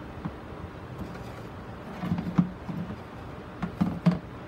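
Gloved hands handling a plastic grid mounting board with a moss ball on it, set on a plastic box: a few short knocks and rubs in two clusters, about two seconds in and again near the end, over a steady hiss.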